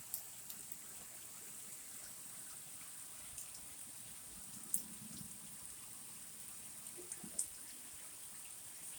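Heavy rain falling, a steady faint hiss with a few sharp drip-like taps about five and seven seconds in.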